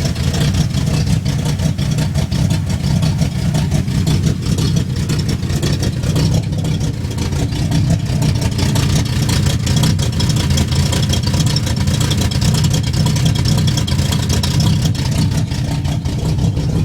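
Oldsmobile 455 V8 in a 1971 Cutlass idling steadily. The engine has a knock and is due for a rebuild, and the owner blames a bad carburetor for how it runs.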